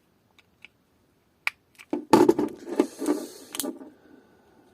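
A plastic car alarm remote case being pried open: a few small clicks, then about a second and a half of loud creaking and scraping plastic that ends in a sharp crack as the case gives way, breaking part of it.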